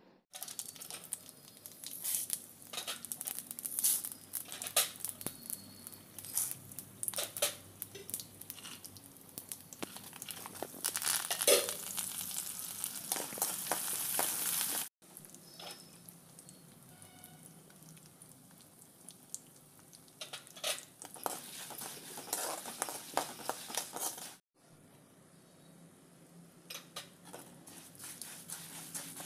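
A tempering frying in hot sesame oil in a pan: curry leaves, dried red chillies, peanuts and dals sizzling with frequent sharp pops and crackles while a metal spoon stirs and scrapes the pan. The sizzle cuts off briefly twice.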